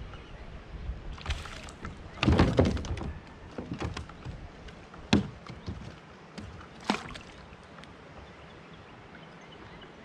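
Hollow knocks and clunks of gear bumping the hull of a fishing kayak, loudest as a cluster about two seconds in, followed by a few lighter taps and two sharp clicks near the middle.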